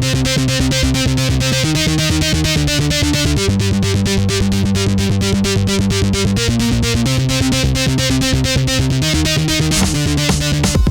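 Electronic dance music without vocals: a fast, steady beat under sustained synthesizer chords whose notes change every couple of seconds.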